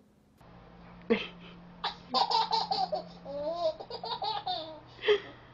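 Baby laughing in a run of short, high bursts, starting about a second in and going on nearly to the end.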